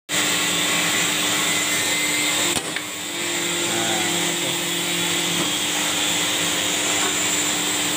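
Hydraulic punching machine's pump motor running steadily with a constant hum, while angle iron is punched. A single sharp click about two and a half seconds in, after which the hum briefly changes.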